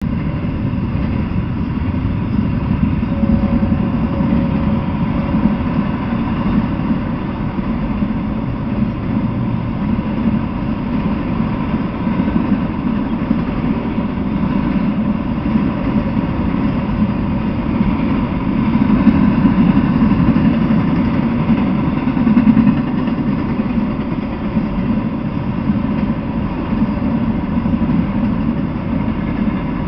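Freight train rolling past: the steady rumble of steel wheels on the rails as intermodal well cars and autorack cars go by. It swells a little about two-thirds of the way in.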